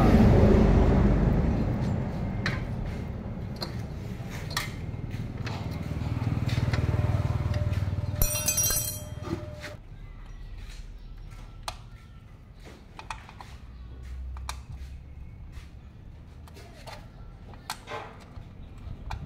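Scattered metal clicks and clinks of hand tools and parts at a motorcycle's rear axle and chain adjuster. A low rumble is loud at first, fades over the first few seconds and swells again briefly before dying away.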